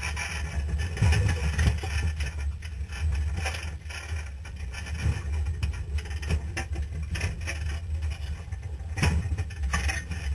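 Off-road race 4x4's engine running with a steady low rumble, heard from inside the caged cabin, with scattered knocks and rattles at irregular moments.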